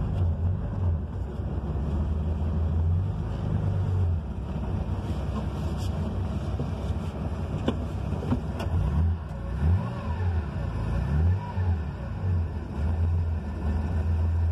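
1973 Porsche 911S's 2.4-litre air-cooled flat-six on Weber carburettors running from inside the cabin while it warms up from a cold start, idling steadily with a few short throttle blips about two thirds of the way through.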